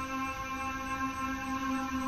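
A steady, eerie droning tone with many overtones that wavers slightly and never breaks, the kind of unexplained sound heard in the sky.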